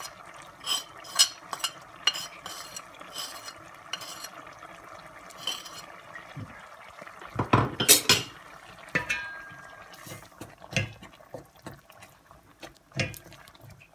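A spoon tapping, clinking and scraping against a steel pan as gram flour is tipped into thick tomato gravy and stirred in. There is a cluster of louder knocks about eight seconds in.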